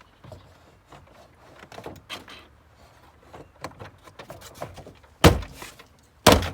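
Plastic car door trim panel being handled and fitted against the door with small clicks and rustles, then struck twice with the hand, two loud thumps about a second apart, to snap its retaining clips into the door.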